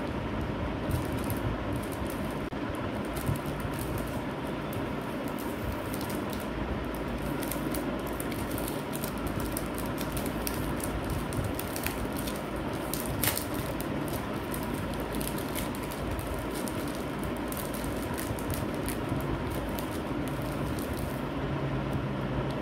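Clear plastic packaging and its card backing rustling and crinkling as they are handled, in scattered small ticks, over a steady background hum.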